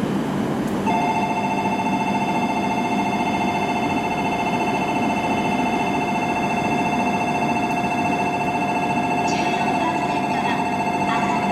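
Electronic platform departure bell ringing steadily. It comes in about a second in as a continuous two-tone ring, the signal that the standing Shinkansen train is about to leave.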